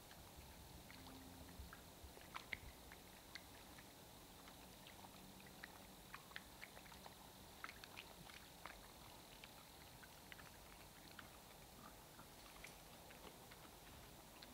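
Near silence with faint, irregular crunching clicks from a feral hog chewing as it feeds.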